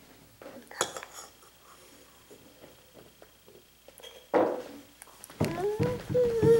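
A spoon clicking and scraping against a small bowl as a toddler eats, with one sharper clink about a second in. Near the end a toddler's voice starts a wavering, drawn-out hum.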